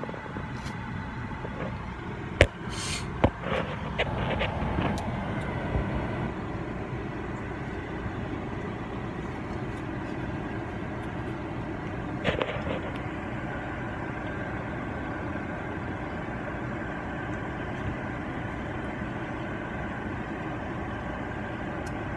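Steady low hum of a running car heard from inside the cabin. Two sharp knocks stand out about two and a half and three seconds in, with a softer one about twelve seconds in.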